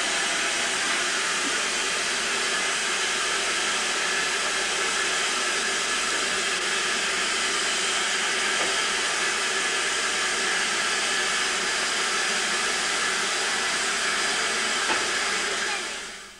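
Steady hiss of steam escaping from a standing steam locomotive, LMS Stanier 8F 2-8-0 No. 8431, fading out near the end.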